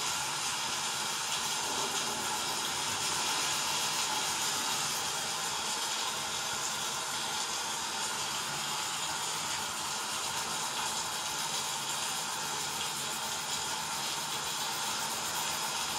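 Steady hissing rush of a hurricane sound track, rain and wind, with no breaks or changes.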